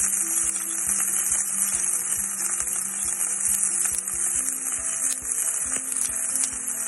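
Onions, ginger, green chilies and curry leaves sizzling in hot oil with mustard and cumin seeds in a pan: a steady, dense frying hiss. Under it runs soft background music with a steady beat.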